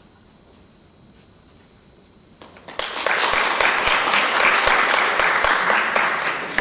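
Quiet room tone for about two and a half seconds, then audience applause breaks out suddenly, a dense clatter of many hands clapping, and begins to fade near the end.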